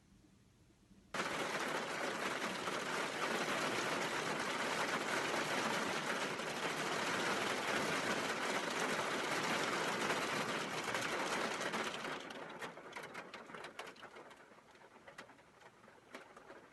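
Heavy rain and hail pelting a sheet-metal roof in a dense, even hiss that starts abruptly about a second in. Near the end it eases into scattered separate drips and taps.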